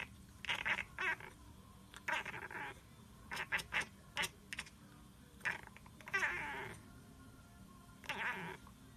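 Domestic cat making a series of short, quick, pitched calls in bursts, with a longer call a little past the middle: the excited calling of a cat watching pigeons it cannot reach.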